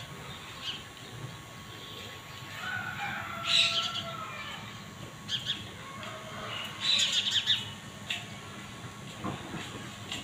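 Small birds chirping in short, scattered bursts, loudest about three and a half and seven seconds in.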